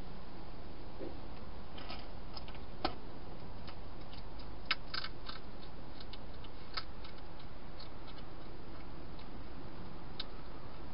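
Wild hedgehog eating in a plastic feeding box: irregular small crunches and clicks as it chews, the sharpest about three and five seconds in, over a steady hiss.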